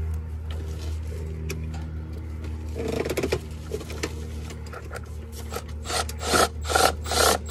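Milwaukee M12 cordless 1/4-inch driver tightening a worm-gear hose clamp on a line-set wall outlet in short trigger bursts: one burst about three seconds in, then a run of quick pulses near the end. A steady low hum sits underneath.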